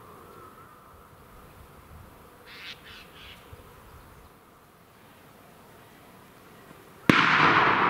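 A single loud gunshot from a hunting gun about seven seconds in, sharp at the start, its echo rolling away slowly over the forest. Before it, only faint outdoor background with a few short, faint harsh sounds near the middle.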